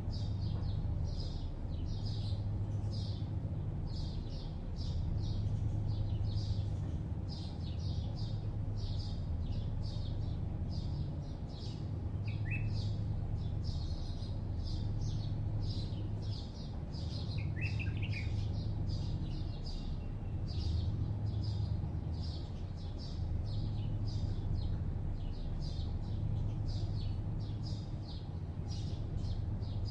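Small birds chirping quickly and continuously over a steady low hum of distant city traffic. Two brief, lower calls that slide downward stand out midway.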